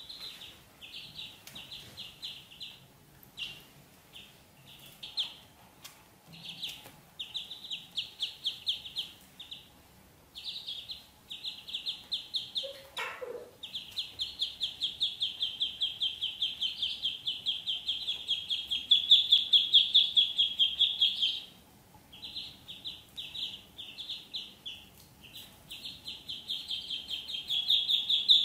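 A group of ducklings peeping: fast runs of high, repeated peeps that stop and start, swelling into long continuous runs. About halfway through there is one short call that drops in pitch.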